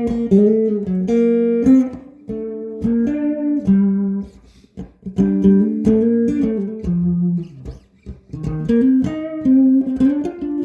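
Electric guitar with Seymour Duncan Zephyr humbucker pickups playing a melodic single-note line of picked notes with string bends and slides, pausing briefly twice.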